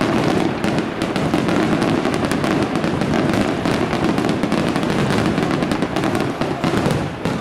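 Aerial fireworks display: a dense, continuous barrage of shell bursts, with many rapid bangs and pops overlapping, easing slightly near the end.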